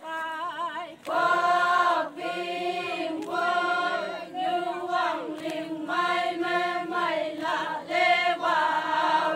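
A group of voices singing a Konyak Naga folk song unaccompanied and in unison, in short held phrases with a brief break between each.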